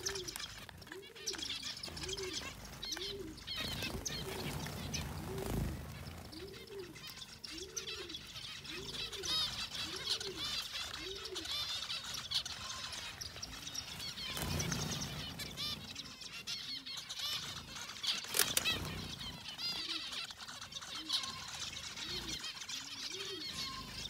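A flock of white zebra finches chirping constantly as they feed, with quick little calls overlapping. Under them a larger bird gives a low call about once a second through roughly the first half and again near the end, and there are a few short, louder noises.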